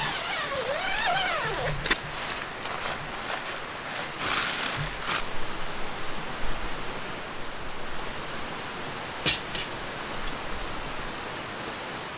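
Camping gear being handled and carried on grass: a short wavering squeal at the start, scattered rustles and clicks, and one sharp knock about nine seconds in, over a steady hiss.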